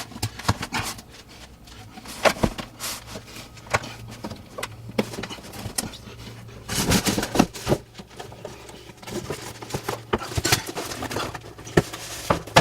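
Irregular knocks, scrapes and rustling from an Engel fridge freezer being unpacked, its box and packing handled and pulled away, over a steady low hum. It cuts off abruptly near the end.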